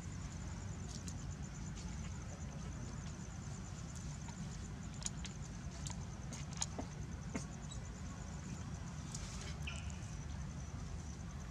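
Outdoor ambience: a steady low rumble under a high, fast, even insect trill, with a few sharp clicks and rustles in the second half.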